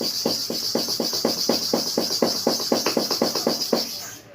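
Steel hair-clipper blade being rubbed rapidly to and fro on a kerosene-wetted sharpening stone, about five scraping strokes a second, grinding its cutting face flat. The strokes fade out near the end.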